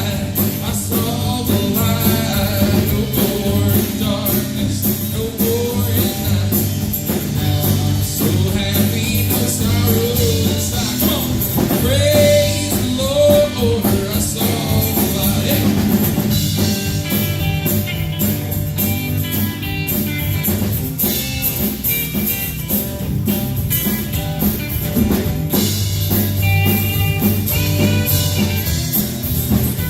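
Live worship band playing a song with drum kit, guitar and singing.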